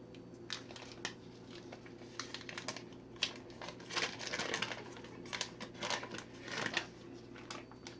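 Paper or plastic packaging crinkling and rustling in irregular bursts, with a few sharp clicks, as kitchen ingredients are handled.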